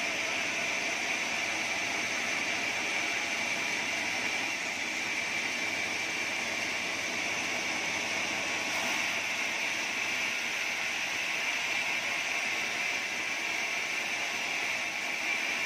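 Band sawmill blade cutting lengthwise through an acacia beam: a steady, high-pitched hiss of the running band and the cut, unbroken throughout.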